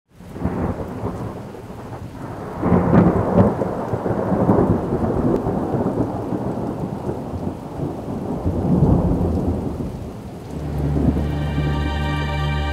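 Thunderstorm ambience: steady rain with rolling thunder, swelling loudest about three seconds in and again around nine seconds. About ten seconds in, a manipulated ambient music loop of sustained, steady tones comes in over it.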